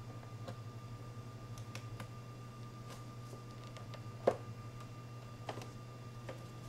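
Plastic side cover of a Yamaha R3 being pressed back onto the bike: a few light clicks and knocks, with one sharp snap a little past halfway as the panel seats. A steady low hum runs underneath.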